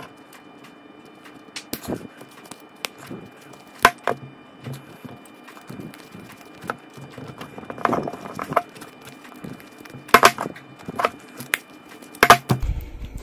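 Needle-nose pliers gripping and rolling back the thin steel casing of an AA lithium battery: irregular metallic clicks, scrapes and crinkling. Sharper clicks come about 4 s in, about 10 s in and near the end.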